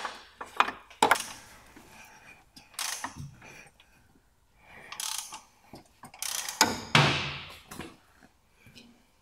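Ratchet wrench clicking in short irregular bursts as the 1.5 dCi diesel engine is turned over by hand through a few revolutions, a check that the new timing belt keeps the timing marks aligned.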